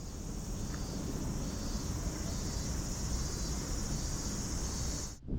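A steady, high-pitched insect chorus over a low rumble of background noise, cutting off abruptly near the end.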